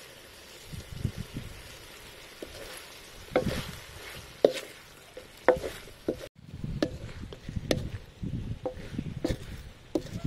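Squid and vegetables stir-frying in a metal wok: a wooden spatula scraping and knocking against the pan over a steady sizzle, with a short break about six seconds in.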